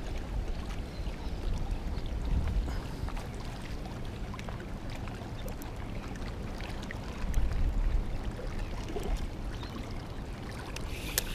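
Wind buffeting the microphone in gusts, a low rumble that swells and fades, with scattered small clicks and a short clatter of clicks near the end.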